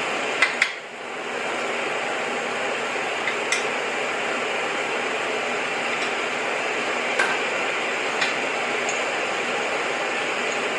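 Steady hiss from a CO2 MIG welding set, with two sharp clicks about half a second in, a brief dip in the hiss just after, and a few scattered ticks later.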